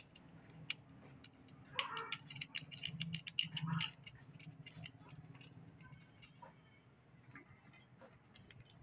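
Light clicking and clinking of small metal engine parts and tools being handled, in a quick run about two to four seconds in, over a faint steady hum.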